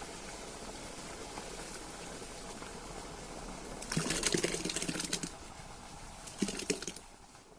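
Watermelon juice and mashed pulp poured from a hollowed-out watermelon into a metal bowl: a splashing pour starts about four seconds in and lasts about a second and a half, followed by a couple of smaller splashes.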